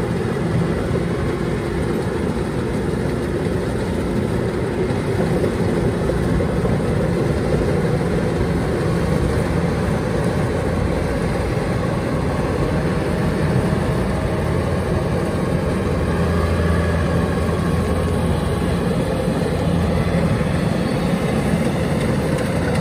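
Kubota DC-105X combine harvester running steadily while cutting rice. Its diesel engine and threshing machinery make a continuous drone.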